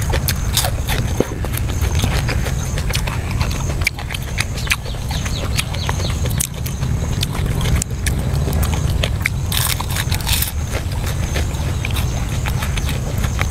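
Close-miked eating sounds: a person chewing food, with irregular wet smacking clicks from the mouth, over a steady low rumble.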